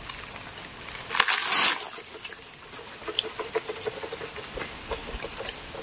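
Leaves and twigs rustling in one short, loud burst about a second in as a long bamboo pole is jabbed into a weaver ant nest in the tree canopy, with scattered small ticks and a steady high hiss behind.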